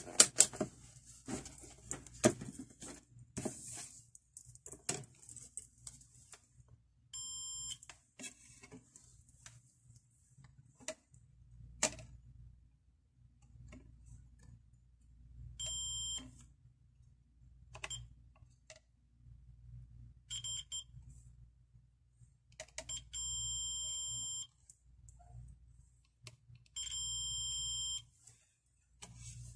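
Digital multimeter's continuity buzzer beeping about six times, some short and two held for over a second, as test probes are touched to points on a circuit board to hunt for a shorted diode or capacitor; each beep marks a low-resistance path between the probes. A burst of clicks near the start comes from the meter's selector dial being turned, and light probe taps click in between.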